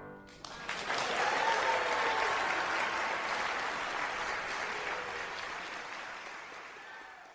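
Concert audience applauding as a piano piece ends: the final piano notes die away and the clapping swells within the first second, then slowly fades out toward the end.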